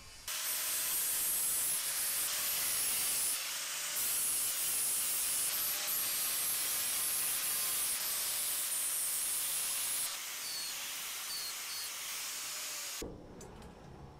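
Rust being stripped from the tricycle's steel frame tube with a spinning abrasive tool: a loud steady hissing rush that eases somewhat near the end and then cuts off abruptly.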